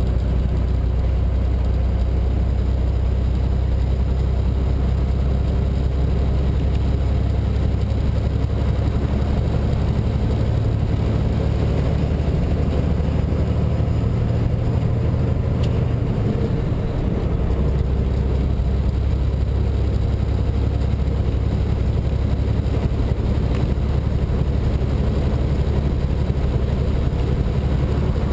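Steady low drone of a semi truck's diesel engine with road noise, heard from inside the cab at highway speed. The engine note shifts briefly about halfway through, then settles back.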